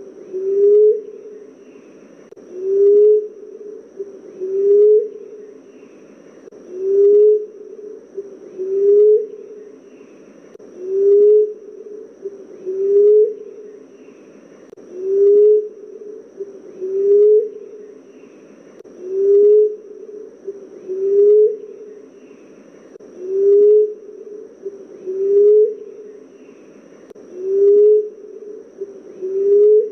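Emerald dove calling: low, soft coos that rise slightly in pitch, repeated evenly about every two seconds.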